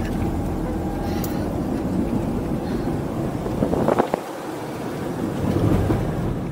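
Steady road and engine rumble heard from inside a moving car's cabin, with a brief whoosh about four seconds in.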